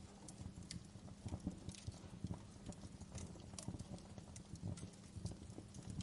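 Campfire crackling: irregular sharp pops and snaps from the burning wood, scattered several to the second over a low, steady rumble of the flames.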